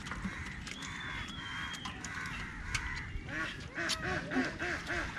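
A fast run of animal calls, about four a second, starting a little past halfway, over scattered clicks and knocks. A thin high tone sounds for about a second shortly after the start.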